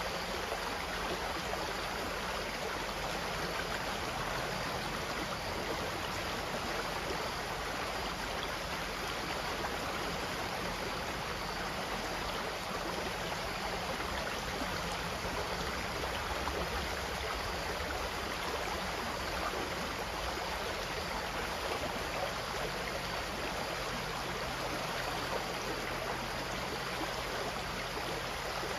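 Running water, flowing with a steady, even rush that does not change.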